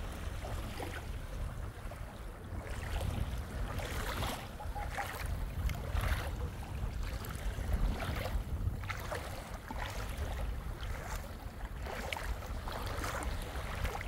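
Small waves lapping and washing onto a sandy beach, a soft wash every second or two, over a steady low rumble of wind on the microphone.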